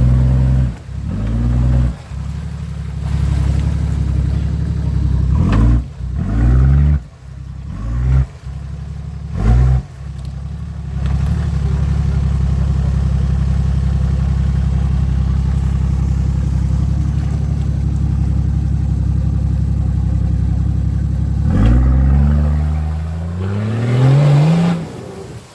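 Off-road 4x4's engine revving in a string of short bursts, then held steady at high revs for about ten seconds, then revving up again near the end.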